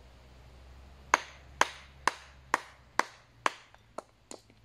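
Wooden mallet striking the back of an axe head set on a log to split it into kindling: six sharp knocks about two a second, then several lighter taps near the end.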